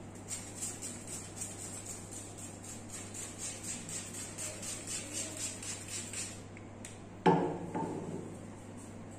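A massage therapist's hands strike the body in a quick, even rhythm of about four strokes a second, which stops after about six seconds. A single much louder, sharp hit follows about seven seconds in.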